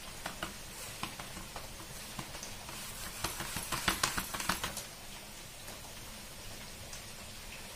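Hands patting and pressing finger millet (ragi) bhakri dough flat on a flour-dusted steel plate: scattered soft slaps, then a quick run of pats about three to five seconds in.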